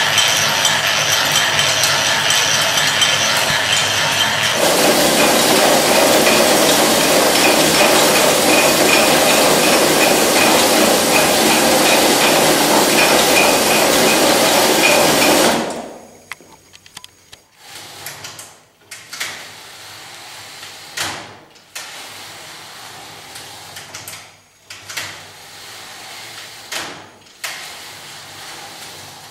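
Powered knitting machines running with a steady, dense mechanical clatter. The sound changes about four seconds in, and the second machine is a Czech-made 1972 knitting machine. The clatter stops suddenly about halfway through, leaving quieter, irregular clicks and sliding knocks as the carriage of a hand flat-bed knitting machine is pushed back and forth.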